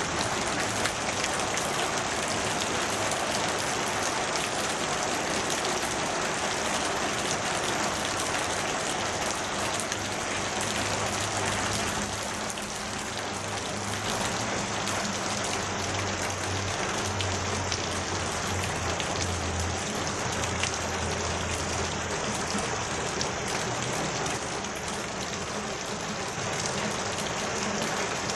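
Steady rain falling, a dense, even hiss of drops on surfaces. A low steady hum joins in for about ten seconds in the middle.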